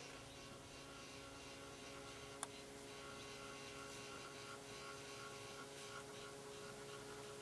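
Electric power tailgate lift motor running with a faint steady hum as it lowers a pickup's tailgate, with one sharp click about two and a half seconds in.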